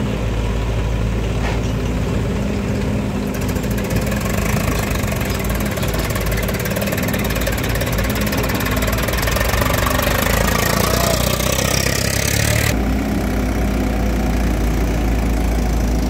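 Diesel engines of farm tractors and a tracked excavator running steadily, a low engine drone throughout. From about three seconds in to about thirteen seconds in, a harsher rushing noise is added on top while the excavator works and dumps soil into a tractor trolley.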